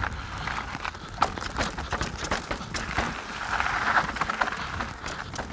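Canyon Strive 29-inch mountain bike rattling over a rough trail: irregular knocks and clatter from the bike, with tyre noise on gravel and rock underneath.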